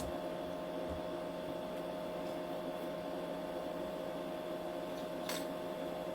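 Steady electrical hum with a single held tone, and one faint click about five seconds in.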